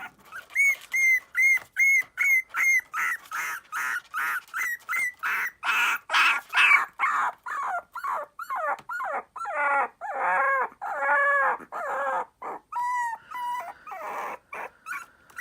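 Very young puppy crying: a long, unbroken run of short, high-pitched whimpering yelps, about two or three a second, growing louder and longer, with a bending pitch, towards the middle.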